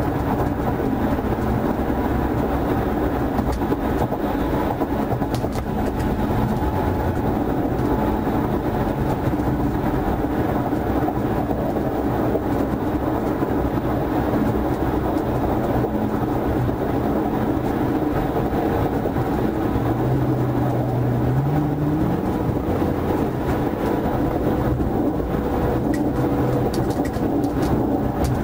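Patrol car running at high speed on the highway, heard from inside the cabin: a steady, loud rush of engine and tyre-on-road noise. About twenty seconds in, the engine note briefly rises.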